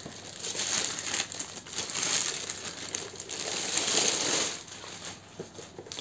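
Thin plastic wrapping bag crinkling and rustling as a MIDI keyboard is pulled out of it. The crackle is strongest through the middle and dies down near the end.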